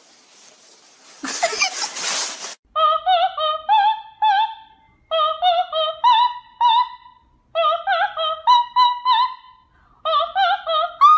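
High operatic soprano singing in four quick phrases of short, ornamented notes, dubbed onto the clip. It is preceded by a brief noisy burst about a second in.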